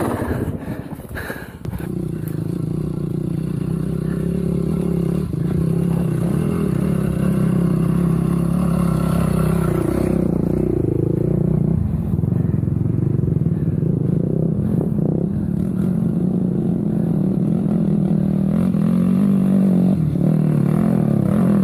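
Motorcycle engine running steadily, its pitch briefly dropping and rising again about ten seconds in.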